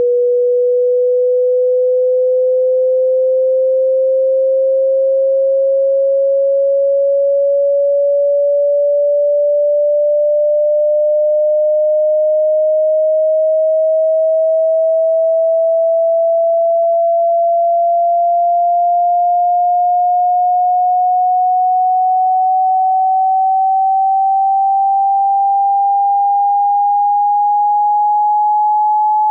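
A single pure sine tone, steady in loudness, rising slowly and evenly in pitch: a hearing-test frequency sweep.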